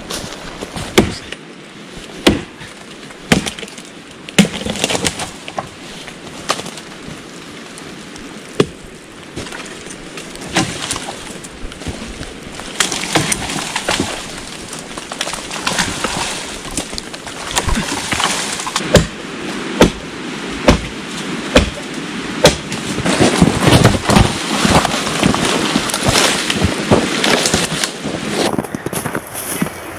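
Axe chopping into green wood to cut a sapling for a pole, sharp strikes about once a second. In the second half the strikes come faster and louder crackling and rustling of branches and dry leaves builds up.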